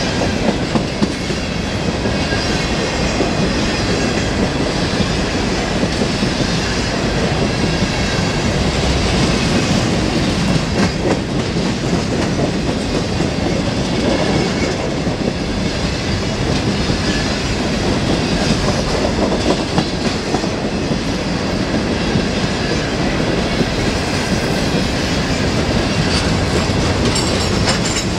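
A freight train's cars rolling past close by, with a steady clickety-clack of wheels over the rail joints.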